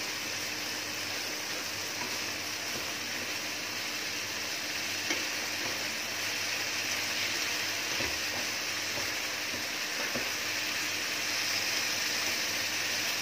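Carrots sautéing in a frying pan with a steady sizzle, and a few light knocks from a utensil stirring them.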